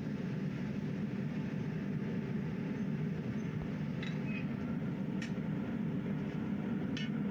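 Electric blower forcing air into a charcoal-fired crucible furnace for melting aluminium: a steady, even rumble with the draught-fed fire. A few light metallic clinks come about four, five and seven seconds in, as an iron rod knocks against the furnace.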